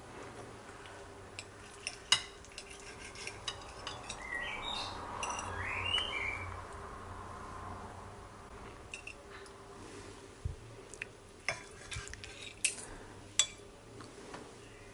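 Fork and knife clicking and scraping against a ceramic plate in scattered light taps, cutting through a soft baked cabbage roll.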